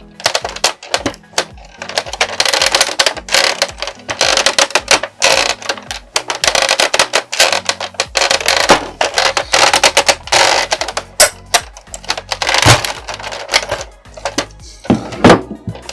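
Background music with a steady bass line, over frequent sharp clicks and rattles of plastic blaster parts and screws being handled while a Nerf Longshot is taken apart.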